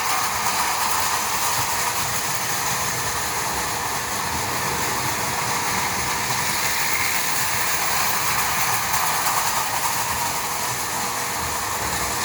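Several O gauge toy trains running on the layout at once, including prewar Marx Commodore Vanderbilt locomotives: a steady running noise of electric motors and wheels on the track.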